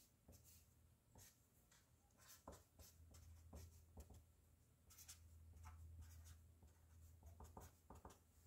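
Near silence with faint, scattered scratching and small taps of writing over a low steady hum.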